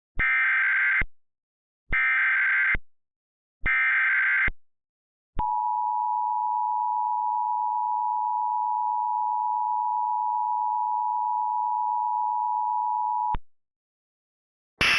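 Emergency Alert System tones for a tornado warning: three short bursts of SAME digital header data, each under a second, then the steady two-tone attention signal held for about eight seconds and cut off abruptly. Just before the end, a hissy radio feed starts.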